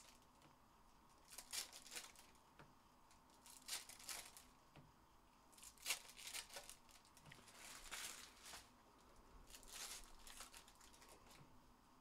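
Faint rustling and crinkling of trading cards and foil pack wrappers being handled, in short bursts about every two seconds.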